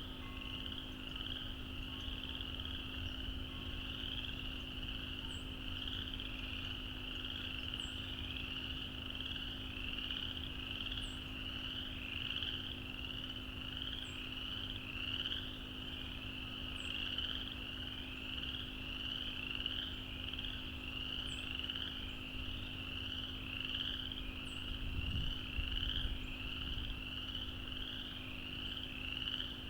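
A chorus of frogs calling without a break, many high, short rising calls overlapping. A faint steady hum and a few faint high chirps sit underneath.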